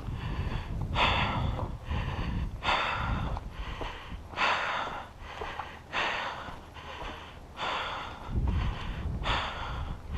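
A person breathing hard close to the microphone, with one loud breath about every second and a half, over a low rumble.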